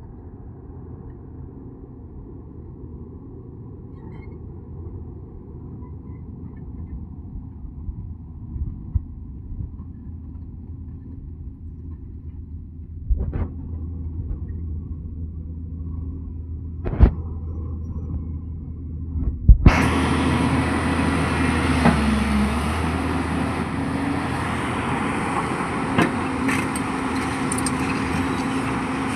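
Diesel engine of a JCB JS220LC tracked excavator running with a steady low rumble, broken by a few sharp knocks. About two-thirds of the way through, after a loud knock, the sound suddenly becomes much louder and fuller, with a hiss over the engine rumble.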